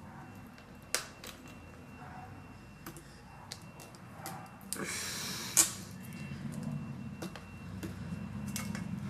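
Small sharp clicks and light handling of plastic parts as thin wires are pulled out of their routing in a laptop screen's plastic bezel, with a brief rustling scrape about five seconds in that ends in a sharp click.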